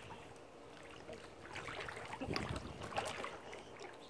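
Pool water splashing and sloshing around swimmers, with irregular small splashes.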